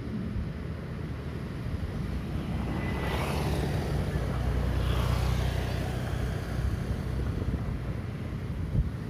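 A motor vehicle passing at a distance: a low rumble that swells to a peak about halfway through and then fades.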